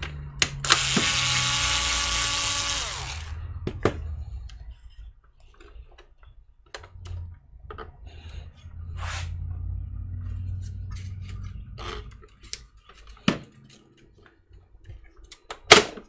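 Bosch cordless screwdriver running for about two seconds, backing out a screw from the hard drive bay. It is followed by scattered clicks and knocks of metal computer parts being handled.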